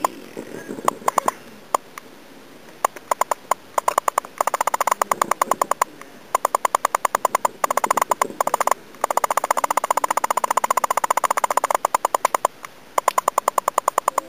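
Frogs calling in repeated trains of rapid, evenly spaced clicking pulses, about ten a second, each train lasting one to a few seconds with short pauses between.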